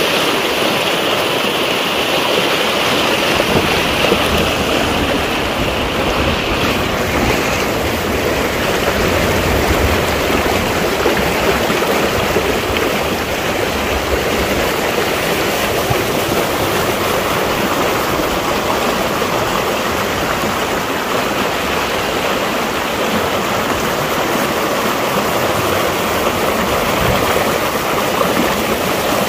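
Swollen mountain stream rushing fast over stones, a loud, steady rush of running water.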